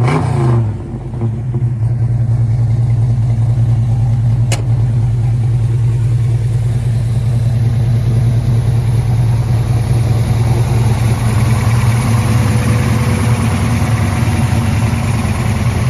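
1964 Chevrolet C10 panel truck's engine settling from a blip of revs to a steady idle within the first second, then idling evenly through its exhaust. A single sharp click about four and a half seconds in.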